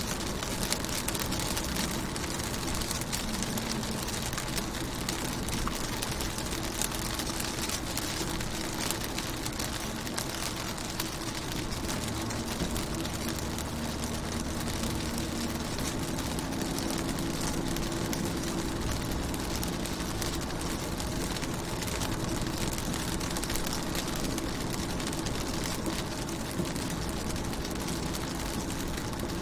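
Rain pattering steadily on a car's window, a dense patter of fine drop ticks, with a low steady hum underneath.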